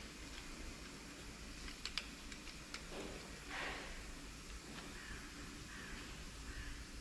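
Small metallic clicks and a brief scraping rustle, about three and a half seconds in, as ZF 16 S 221 truck gearbox parts are fitted by hand onto the shaft. A faint steady workshop background lies underneath.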